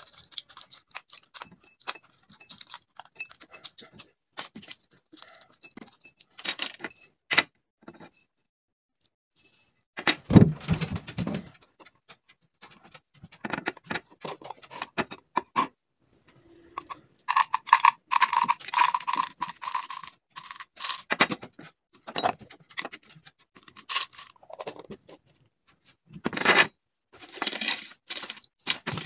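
Foil blister packs crackling and crinkling as capsules are pushed out of them, with capsules clicking and rattling against a ceramic bowl and a clear plastic container. A louder thump comes about ten seconds in, and empty blister packs crinkle near the end.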